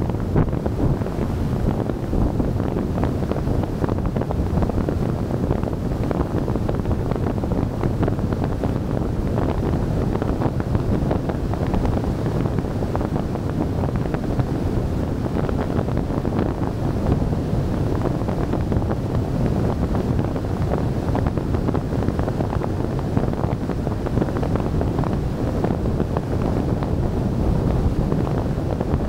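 Wind buffeting the microphone of a camera on a car driving at road speed, with road noise beneath: a steady low noise that does not change.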